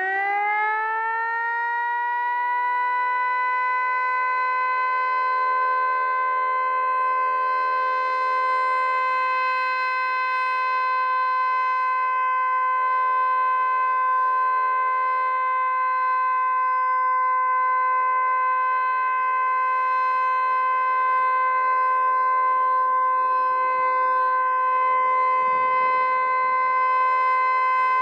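Federal Signal Eclipse 9 outdoor warning siren sounding a loud full alert. Its pitch is still rising in the first second or two as it winds up, then it holds one steady tone. Its horns are fixed and do not rotate, so the sound does not sweep in and out.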